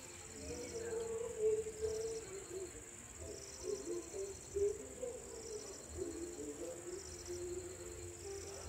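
Night insects calling: a steady high cricket trill with a pulsed chirp repeating about once a second, over a low wavering murmur.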